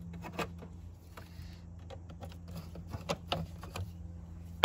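Scattered light clicks and small rattles from hand work on a truck engine's air-intake tube and its metal hose clamps, over a steady low hum.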